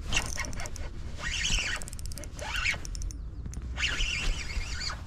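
Spinning reel being cranked in short bursts with pauses between: a whirring, clicking retrieve repeated about four times, the stop-and-go step retrieve of a jig lure.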